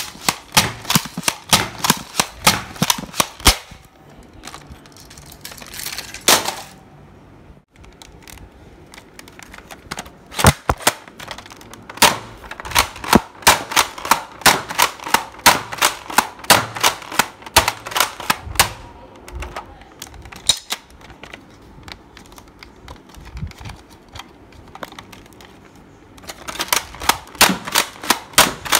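Foam-dart toy blasters, an X-Shot Skins Dread and then a Nerf Elite 2.0 Eaglepoint, being primed and fired in quick succession: runs of sharp plastic clacks about three a second, broken by two pauses of several seconds.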